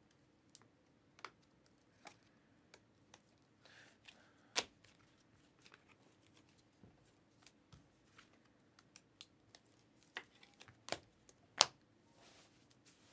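Trading cards and packs being handled on a table: scattered soft clicks and taps as cards are stacked and set down, with a couple of faint rustles. The sharpest taps come about four seconds in and in a cluster near the end.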